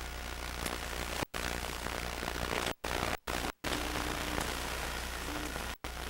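Steady hiss and low hum of old videotape audio with no speech, broken five times by brief dropouts to silence.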